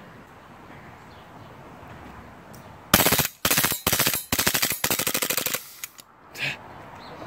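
Glock-style gas blowback airsoft pistol firing four rapid bursts of shots, starting about three seconds in.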